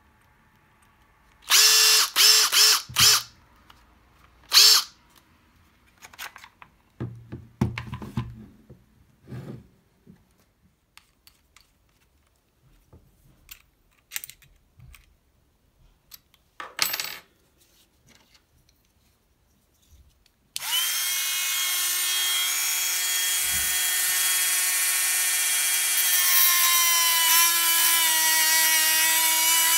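Cordless impact driver motor run in a few short trigger pulls, then handling knocks. From about two-thirds of the way in, a cordless drill spins a small cut-off disc into a plastic trigger-switch housing: a steady high motor whine whose pitch sags a little as the disc bites.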